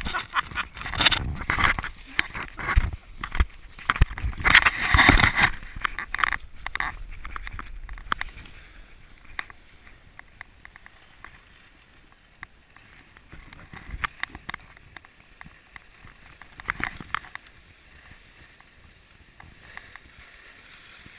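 A skier's fall in snow: loud scraping, crunching and knocking of skis and the camera against snow for the first five or six seconds. After that comes a much quieter hiss of skis gliding on snow, with a few scattered bumps.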